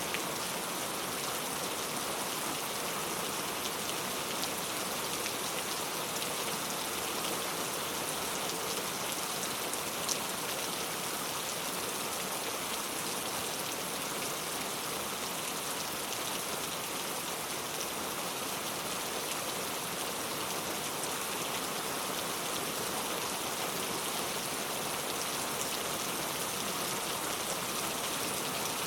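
Heavy rain falling steadily, a dense, even hiss of drops, with one sharper drop tick about ten seconds in.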